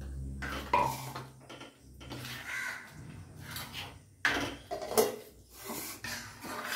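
A silicone spatula stirring kheer, rice simmering in milk, in a metal kadai, with irregular scrapes and a few sharp knocks against the pan.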